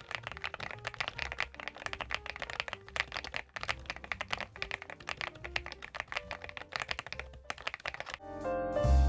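Rapid, uneven typing on a CIDOO ABM066 gasket-mounted mechanical keyboard, a dense stream of keystroke clicks. Music with piano and bass rises in near the end.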